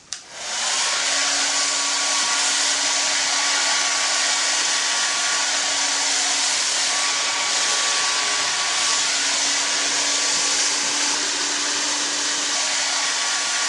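Handheld hair dryer switched on with a click, spinning up within a second, then running steadily: an even rush of air over a constant motor hum.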